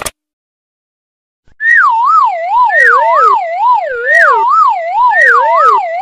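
A short tap click, then, from about a second and a half in, a loud cartoon siren sound effect. Its warbling tone wobbles about twice a second and slides downward, starting again from the top roughly once a second.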